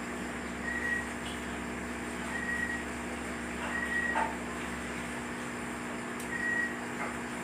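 Steady mechanical hum, with a short high beep every couple of seconds. A few faint clicks come from the metal light stand and ring light as they are adjusted.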